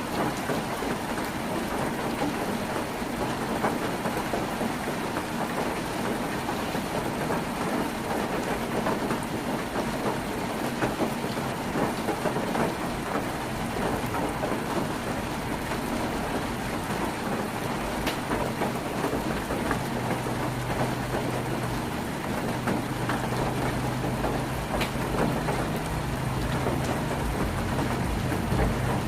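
Heavy rain drumming steadily on a tin roof, a dense patter of drops. About twenty seconds in, a low steady hum joins underneath and grows louder.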